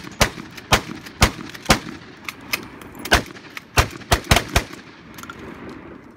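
Rapid gunfire from two shooters firing at once, a long gun and a handgun. About a dozen sharp shots, unevenly spaced, each with a short echo, thin out after about five seconds.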